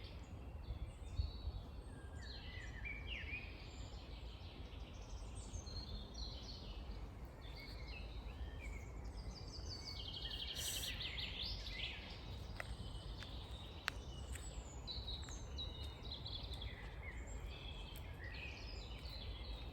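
Several songbirds singing and chirping on and off, over a steady low rumble of background noise, with a sharp click about 14 seconds in.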